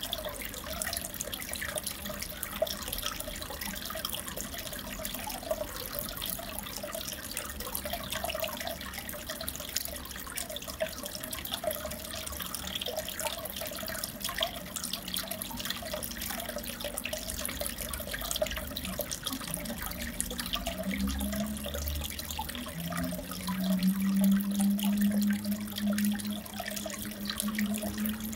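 Steady trickling and bubbling of aquarium water, with fine splashy ticks, typical of a fish-tank filter returning water to the tank. A low hum comes in near the end and is loudest for a few seconds before it fades.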